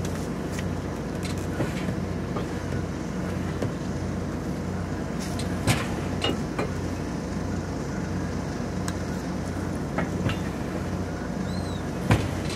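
A vehicle engine running steadily as a low hum, with a few light knocks.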